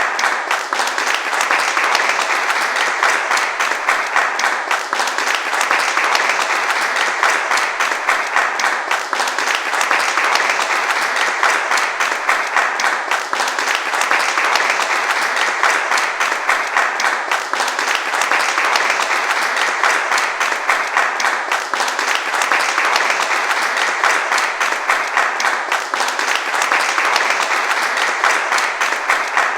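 A crowd applauding: steady, sustained clapping from many hands, with gentle swells every few seconds.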